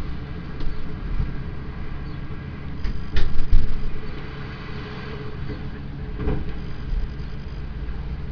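Tipper truck tipping a load of hardcore: its diesel engine runs steadily while the rubble slides out of the raised body. A few knocks stand out, the loudest about three seconds in and another a little after six seconds.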